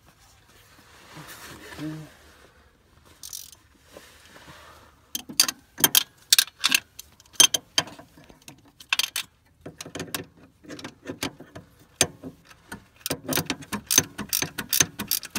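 Hand ratchet wrench clicking in short runs while tightening a 14 mm starter mounting bolt. The clicks begin about five seconds in and come faster and denser near the end.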